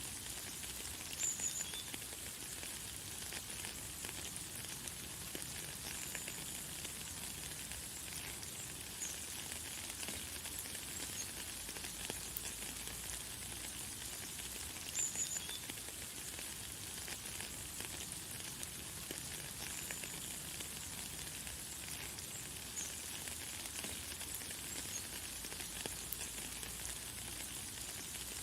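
Light, fine rain falling steadily as a soft hiss, with short high bird chirps now and then, the clearest about a second in and around the middle.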